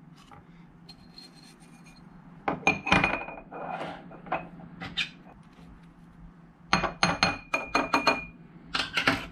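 Stone pipe and a small metal tool clinking and scraping against a glass jar as a pipe bowl is scooped and packed with dried herb. The sound comes in several short clusters of clinks, with a faint ringing from the glass during the busiest ones.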